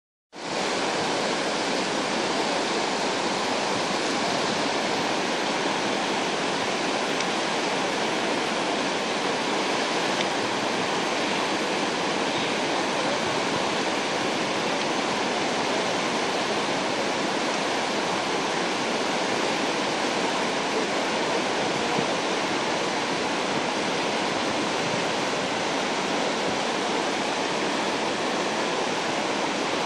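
Whitewater rapids of the Teno River rushing in a steady, unbroken wash of water.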